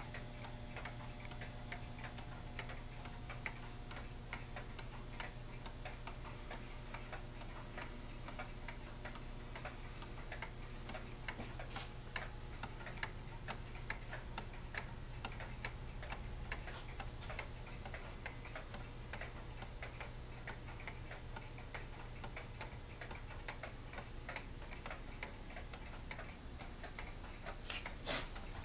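Antique mechanical pendulum clocks ticking, several at once and out of step, making a dense, uneven run of ticks over a steady low hum.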